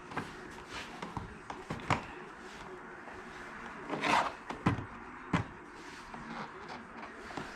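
Irregular knocks and clicks with a short scrape about four seconds in: a snowmobile radiator protector being handled and slid into position.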